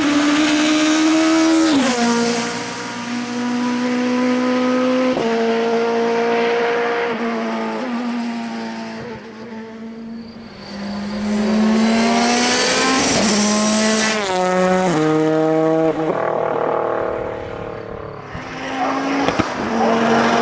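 Touring race car engines at full throttle, the note climbing through each gear and dropping sharply at each quick gear change. The sound fades about halfway through and again near the end before coming back up.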